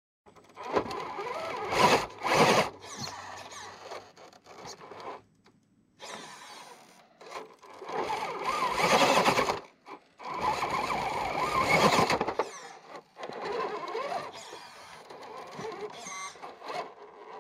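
Electric motor and gears of an Axial Bronco RC rock crawler whining in stop-and-start bursts as it climbs over rock. It is loudest about two seconds in and again around nine to twelve seconds in.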